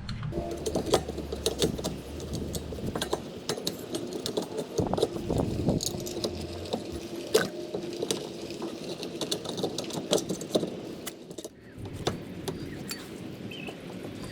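Irregular metallic clinks and knocks of a car's rear hub-and-bearing assembly being handled and fitted onto the axle, with a low hum during the first few seconds.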